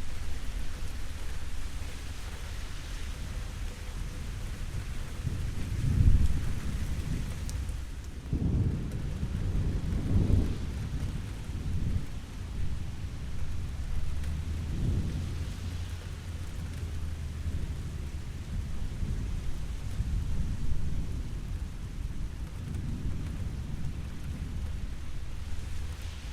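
Steady rainfall with thunder rumbling several times, the loudest peal about six seconds in and another long roll around nine to ten seconds in.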